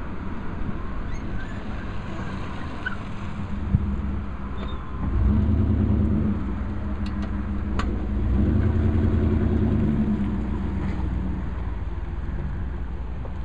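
Motor engine running close by, getting louder twice in a low, pulsing hum, over steady outdoor background noise, with a couple of faint clicks.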